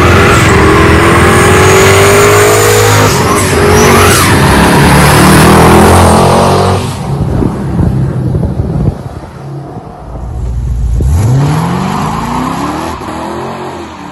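Twin-turbo LSX V8 Chevrolet Monte Carlo SS doing a burnout at high revs, its tyres squealing. About seven seconds in the sound cuts away, and later the engine revs up sharply, rising in pitch, as the car accelerates off.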